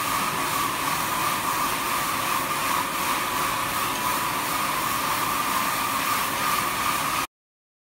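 Jonsen SD300 wet deburring machine running, its wide sanding belt and planetary disk-brush heads turning as parts ride the conveyor: a steady noise with a strong hum near the middle of the range. It cuts off suddenly near the end.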